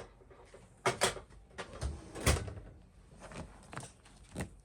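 Scattered knocks and clunks of a test meter and small items being handled and put away on a workbench, about seven separate knocks, the loudest a little past two seconds in.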